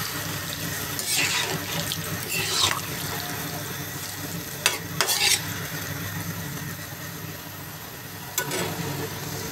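Boiled bottle gourd pieces in oil and their own cooking water bubbling and sizzling in a kadai. A metal spatula scrapes and stirs against the pan a few times.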